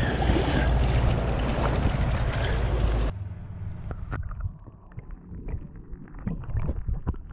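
Strong wind buffeting the microphone with a heavy low rumble. It cuts off abruptly about three seconds in, leaving a much quieter stretch of scattered small clicks and ticks.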